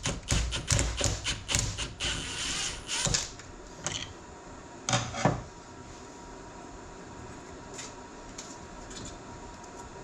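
Ratchet wrench clicking quickly for about two seconds while the nut on a tractor's steering control valve is turned off, then a few separate metal clinks as the parts are handled.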